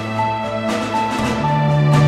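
Background music: sustained chords over a bass line, with a short repeated high note, the bass moving to a new note about a second in.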